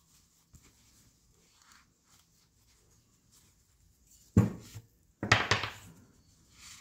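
Shop rag being twisted and rubbed inside the bore of a motorcycle brake master cylinder held in the hands: faint cloth rustling, then two louder scuffs about a second apart, a little over four seconds in.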